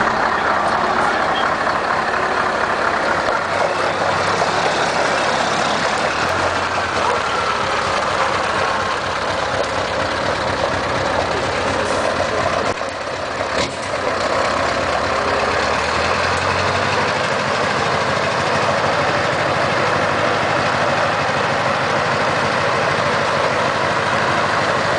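Scania R580's V8 diesel engine running at a steady low rumble, with a brief drop in level about 13 seconds in.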